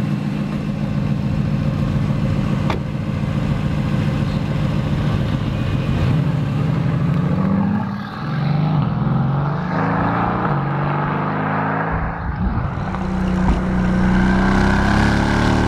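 Mercedes-AMG GT twin-turbo 4.0-litre V8 running at a steady idle, then revving and accelerating from about six seconds in, its pitch stepping up and down as it pulls through the revs.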